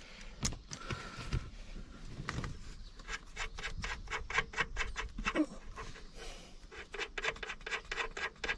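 A bolt on the steering column tilt bracket being turned with a hand tool: a run of short metallic clicks and scrapes, sparse at first and then about four a second from about three seconds in.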